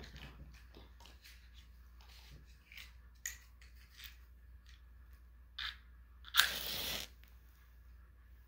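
Shabbat candles being lit: small handling clicks and scrapes, a couple of short scratches, then a loud strike and hiss of a light being struck, lasting about half a second, about six and a half seconds in.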